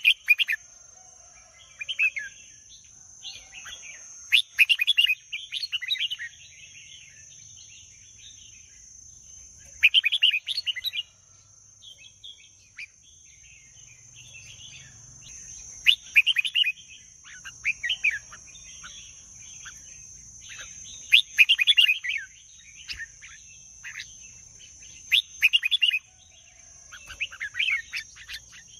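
Red-whiskered bulbul singing: short, bright, chirpy phrases repeated every second or few seconds, with a brief pause about halfway through.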